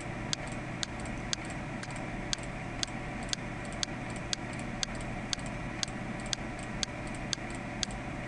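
Computer mouse button clicking at an even pace of about two clicks a second, over a faint steady hiss and hum.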